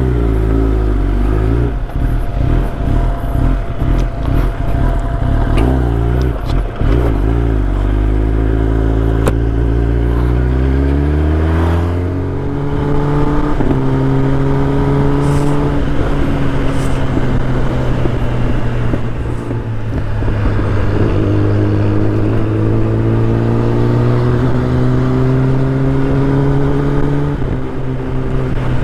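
Kawasaki ZX-10R inline-four engine under way. The revs waver at first, then climb steadily and drop at an upshift about twelve seconds in. The engine holds an even note, then climbs again to another shift near the end.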